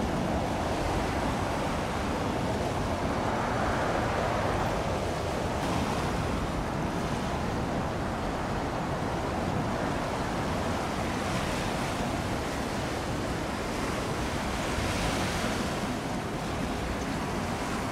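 Steady rush of wind and waves, swelling and easing a few times, with no clear engine tone.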